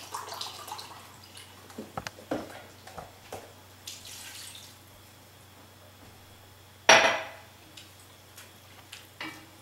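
Chicken stock poured from a carton into a glass measuring cup, then tipped into a pot, with small clinks of kitchenware in between. About seven seconds in there is a single sharp knock, the loudest sound, as a cup or spoon meets the pot or counter.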